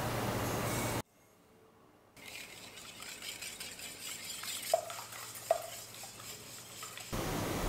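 Sugar pouring into a glass bowl of beaten eggs, then a second of silence. After that comes a wire balloon whisk stirring the egg-and-sugar mixture in the glass bowl, with two light clinks of the wires against the glass a little after halfway.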